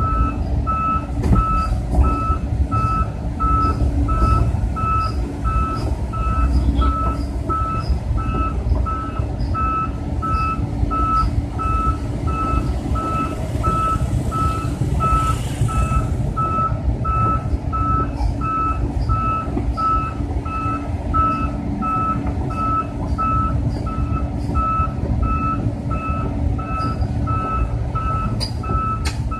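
Volvo EC210 excavator's travel alarm beeping steadily, a bit over one beep a second, over the steady hum of its diesel engine as the machine tracks along, with a brief hiss about halfway through.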